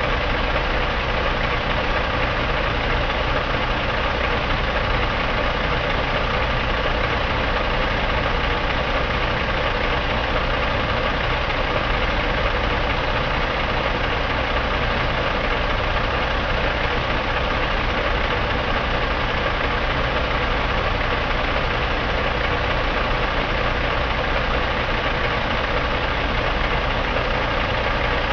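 2006 Caterpillar C13 inline-six diesel engine idling steadily in the truck, running evenly with no change in speed.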